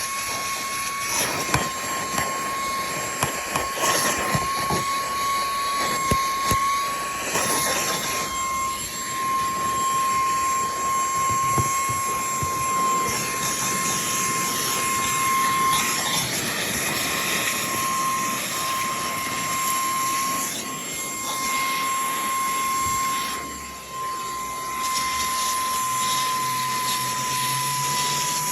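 Handheld cordless car vacuum cleaner running, with a steady high motor whine over the rush of air. Scattered knocks and clicks sound in the first several seconds, and the sound dips briefly about three-quarters of the way through.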